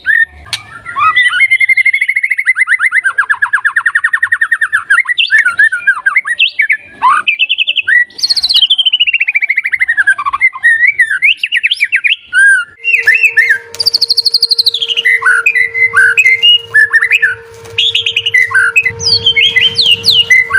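White-rumped shama (murai batu) singing a long, varied song of rapid trills, rising and falling whistles and short chattering notes. About two-thirds of the way in, a faint steady hum starts beneath the song.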